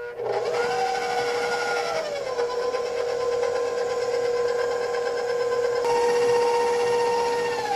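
Electric stand mixer starting up and running steadily with a whining motor as its paddle beats frangipane cream while cornstarch is added. The whine shifts pitch about two seconds in, and falls as the mixer slows near the end.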